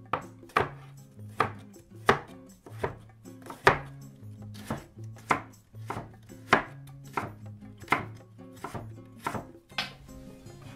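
Chef's knife chopping carrot on a bamboo cutting board: sharp knocks of the blade striking the board, about one and a half per second, stopping near the end, with soft music underneath.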